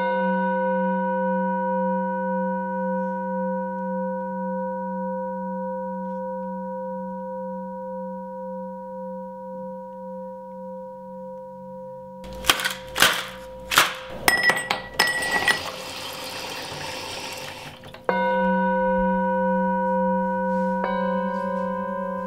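A ringing bell-like tone that wavers as it slowly fades over about twelve seconds. A burst of clattering and hiss follows, then the tone is struck again about eighteen seconds in and once more near the end.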